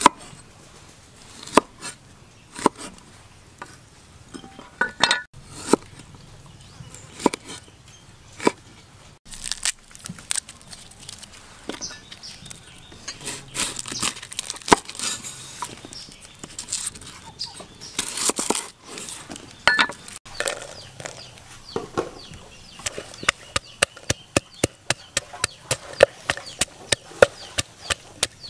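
Steel cleaver chopping on a wooden cutting board: single knocks about a second apart, then a denser stretch of crackly cutting sounds. Near the end comes a fast, even run of knocks as a wooden pestle pounds in a wooden mortar.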